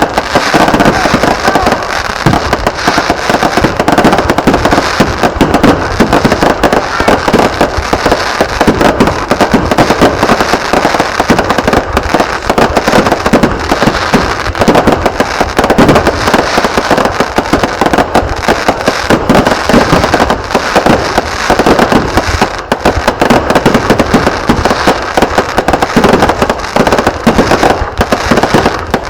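Fireworks going off in a dense, continuous barrage of rapid bangs and crackles, with no pause.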